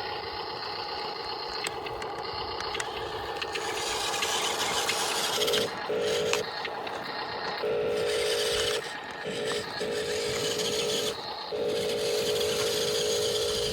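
Small electric motors of radio-controlled toy construction vehicles whining in start-stop spurts, with gears and tracks rattling and scraping through dirt.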